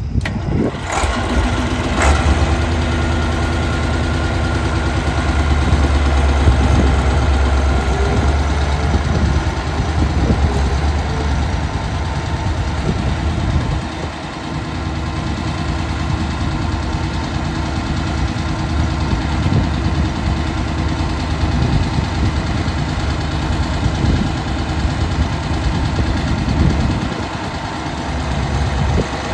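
Massey Ferguson 1155 tractor's Perkins V8 diesel running at low speed while the tractor drives, a steady deep rumble that dips slightly twice.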